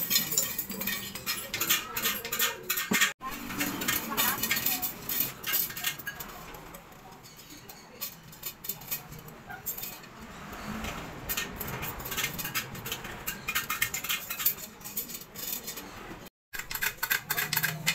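Steel wheel spokes clinking and rattling against a chrome rim and hub as they are laced into a spoked motorcycle wheel, a run of sharp metallic clicks that eases off for a few seconds in the middle and picks up again.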